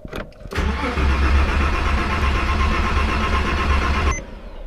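Porsche 997 Carrera 4S 3.8-litre flat-six turned over on the starter for about three and a half seconds without firing, then cut off abruptly, after a short click. The fuel pump fuse is pulled, so the engine only cranks, circulating the fresh oil after an oil change.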